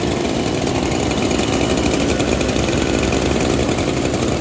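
A small engine running steadily at an even speed, loud throughout.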